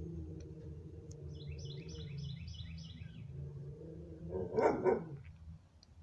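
A dog barks twice in quick succession about four and a half seconds in. Before that a bird twitters in a quick run of high chirps, over a steady low hum.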